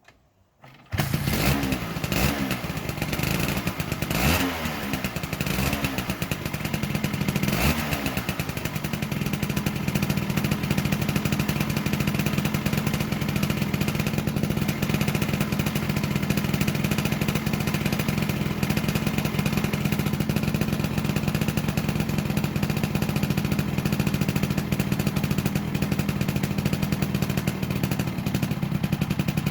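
Vespa P200's 198 cc two-stroke single-cylinder engine running: it comes in suddenly about a second in, is revved a few times, then settles to a steady idle.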